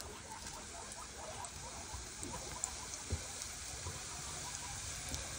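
Green plantain baskets frying in oil: faint, scattered crackling and popping, with a couple of soft knocks about three seconds in.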